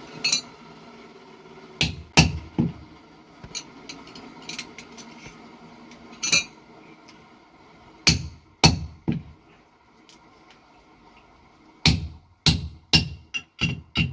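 Hand hammer striking steel on an anvil, sharp ringing blows in irregular clusters: a few spaced strikes, then a quicker run of about six near the end.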